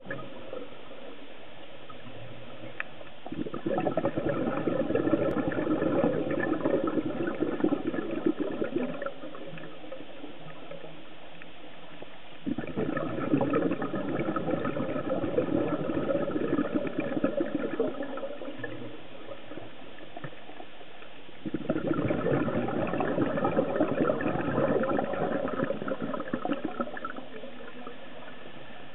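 Scuba diver's exhaled air bubbling from the regulator, heard underwater: three long crackling bursts of bubbles several seconds apart in a steady breathing rhythm, with a quieter steady hiss between them.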